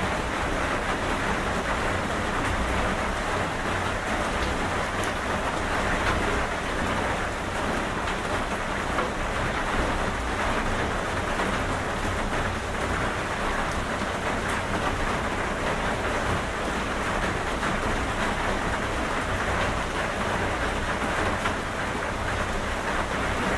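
Steady heavy rain falling on a surface, an even patter with a low rumble underneath and faint scattered drop ticks.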